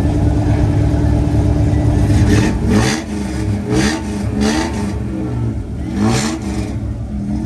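Old 1960s Suburban truck's engine idling, then revved in several short blips as the truck pulls away, the exhaust pitch rising and falling with each blip.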